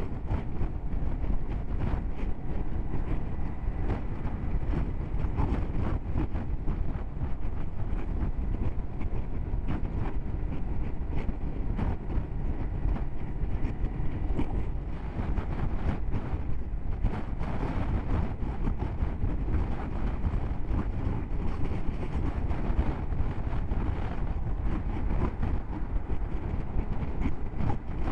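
Steady wind rush and road noise while riding a Honda CB500X motorcycle at cruising speed, with the wind buffeting the microphone.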